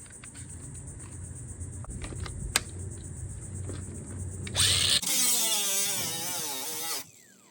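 A low rumble, then about four and a half seconds in a small electric power tool whirs up. It runs about two and a half seconds with its pitch wavering up and down, then stops abruptly.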